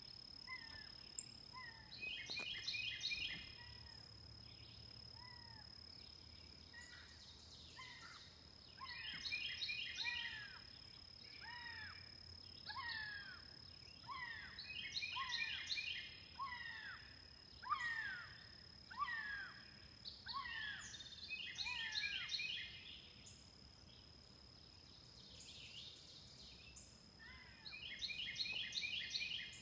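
Songbirds calling: short falling chirps again and again, with bursts of quick high notes about every six seconds, over a steady high insect drone.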